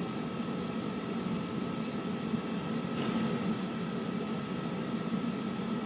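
Steady machine hum with a constant faint high whine running through it, unchanging throughout.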